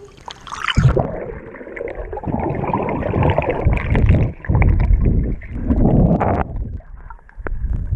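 Water heard through a camera held under the surface of a swimming pool: a short splash as it goes under just before a second in, then muffled churning and bubbling with a deep rumble as the swimmer moves. It eases off near the end.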